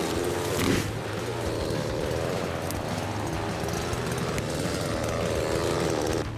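Chainsaw running as it cuts into a tree trunk, its engine pitch wavering up and down under load. It cuts off abruptly near the end.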